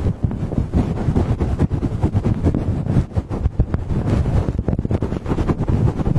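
Binaural microphones being rapidly buffeted and rubbed as an ASMR trigger: a fast, dense run of low, wind-like thumps on the mic with no pause.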